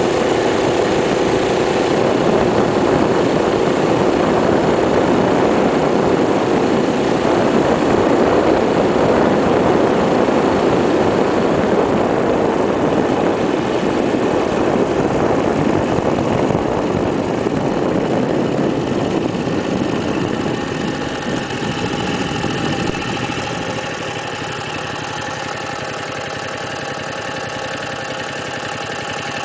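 Small single-cylinder Tecumseh engine of a 1972 Rupp Roadster minibike running under way at riding speed, then easing off to a lower, steadier running speed in the last third as the bike slows.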